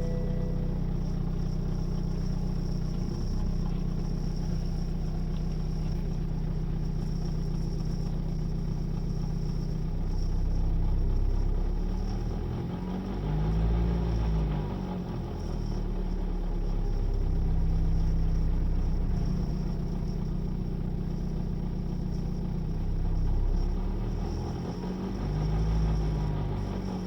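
BMW N47 four-cylinder diesel engine running with timing chain noise. The noise is the sign of a worn timing chain and guides. It idles steadily and is revved up and back down twice, about halfway through and near the end.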